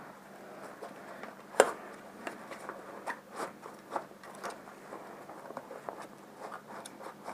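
Maxpedition Thermite Versipack being handled and opened: nylon fabric and zipper rustling with scattered small clicks, and one sharp snap about one and a half seconds in.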